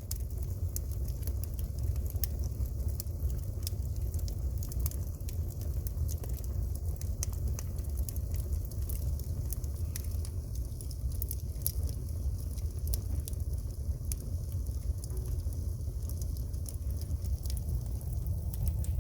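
Firewood burning in an agungi, a traditional Korean firebox, with many irregular sharp crackles and pops over a steady low rumble.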